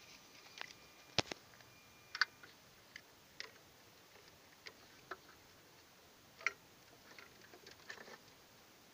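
Irregular clicks and light knocks of small tools and cables being handled and put away, roughly one every second, the sharpest about one and two seconds in.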